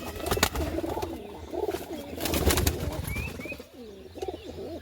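Pigeons cooing in low, rolling calls, with several sharp clicks or knocks, the loudest about half a second in and again about two and a half seconds in. The cooing fades out a little before the end.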